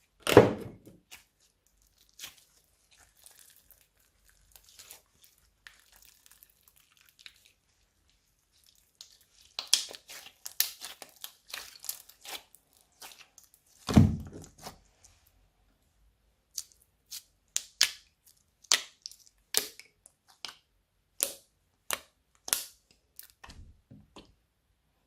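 Slime being squished, stretched and mixed by hand: sticky tearing and crackling, with two heavy thumps, one at the start and one about halfway. In the second half comes a run of sharp clicking pops, a little more than one a second.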